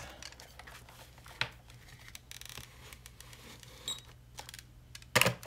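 Colop E-mark Create handheld inkjet printer printing onto cork as it is slid across: faint scattered clicks and light scraping, a short high beep about four seconds in, and a sharper knock near the end.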